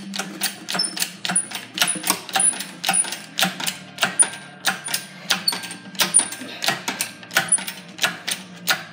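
Engine hoist being pumped to lift an engine on its chain: a steady run of sharp metallic clicks, about four a second.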